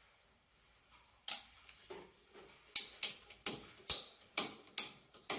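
A ratchet strap being cranked tight, its ratchet giving sharp metallic clicks: one click a little over a second in, then after a pause a steady run of about two clicks a second as the strap pulls down tightly on the hull.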